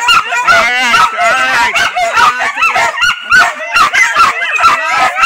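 Several hunting dogs barking and yelping without a break, their high-pitched calls overlapping, with a fast wavering yelp about a second in.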